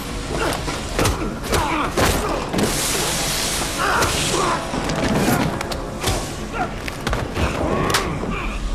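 Action-film fight soundtrack: tense score under repeated punches, thuds and body impacts, with a hissing rush about three seconds in.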